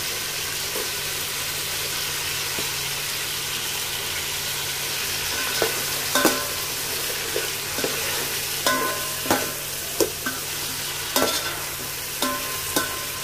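Tomatoes, onions and green chilies sizzling as they sauté in a pot, a steady frying hiss. From about five seconds in, a metal spatula stirs them, with sharp knocks, scrapes and ringing clinks against the pot.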